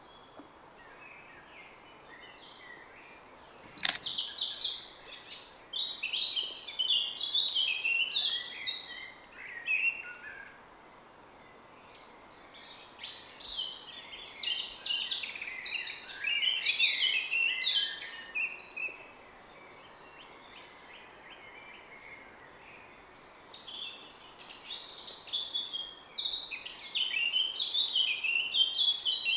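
Small songbird singing rapid, high twittering song in three long bouts over a faint steady outdoor background, with a single sharp click about four seconds in.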